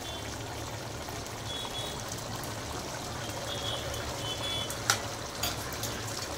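Biryani rice in coloured water simmering in an aluminium pot on the stove, a steady bubbling hiss over a low hum, with a couple of sharp clicks about five seconds in.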